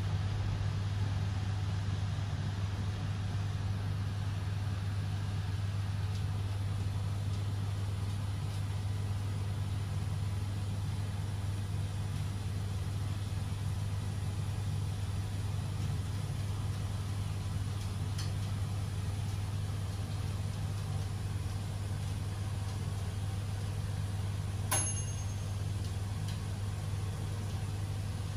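A steady low mechanical hum, like an engine or motor running, with one sharp click near the end.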